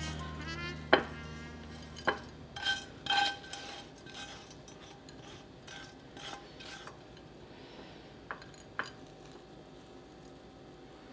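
Kitchen utensils clinking against cookware. There are several sharp, ringing clinks in the first few seconds, softer clatter after them, and two more clinks near the end.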